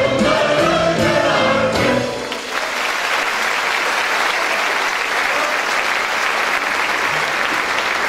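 A mixed Turkish classical music choir, accompanied by ouds, sings the last notes of a song, which end a little over two seconds in. The audience then breaks into steady applause.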